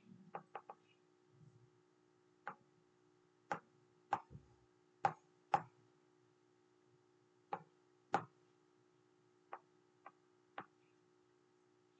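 About a dozen faint, sharp clicks at irregular intervals, with a faint steady hum underneath.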